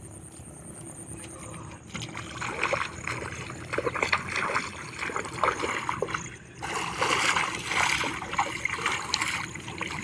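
Shallow water splashing and sloshing as someone wades barefoot and reaches into it by hand. It starts about two seconds in, breaks off briefly past the middle, then resumes.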